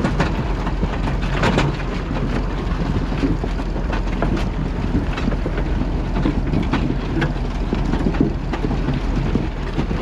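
Massey Ferguson 711 potato harvester running in the field: a steady low drone with constant irregular clattering and knocking as potatoes, stones and soil tumble over its rotating picking table and elevator.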